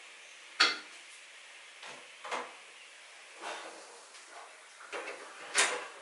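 Plastic bottles being set into a metal wire shower caddy: a series of about seven short knocks and clatters, the loudest about half a second in and another near the end.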